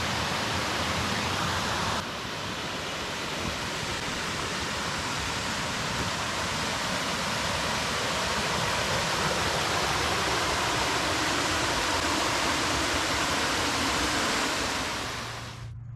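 Water of Mosquito Falls rushing steadily over the rocks. It shifts abruptly about two seconds in and fades out near the end.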